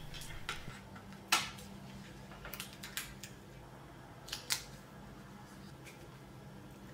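Small scissors snipping through glitter paper, a few sharp snips with the loudest just over a second in, then scattered soft clicks and taps as a vinyl circle is handled and pressed onto the paper on a countertop. A faint steady low hum runs underneath.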